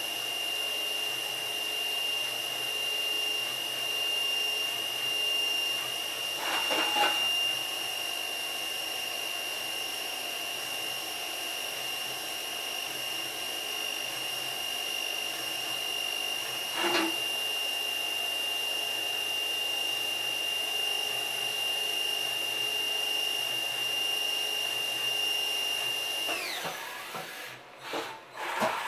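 Johnford SV-32 CNC vertical machining center running with a steady high-pitched whine, broken by two brief rattling knocks about 7 and 17 seconds in as its axes move. Near the end the whine falls sharply in pitch and dies away as the machine winds down, followed by a few short clatters.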